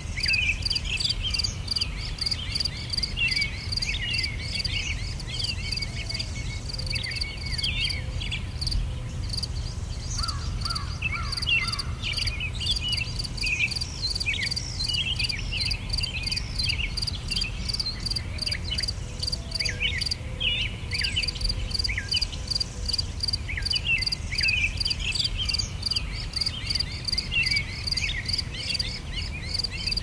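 Insects chirping in a rapid, regular pulse, with many short, high bird chirps and a low steady rumble underneath. The pulsing breaks off briefly twice.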